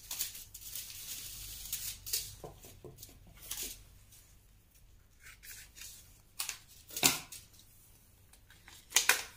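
Paper seed packets rustling and crinkling as they are handled and opened, with scattered small clicks and two sharp snaps near the end, about two seconds apart.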